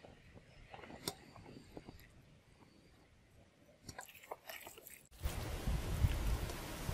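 Hands rummaging through rotten palm-trunk fibre in a plastic basin, the fibres crunching and crackling as they are pulled apart. About five seconds in, a loud low rumble of wind on the microphone sets in suddenly.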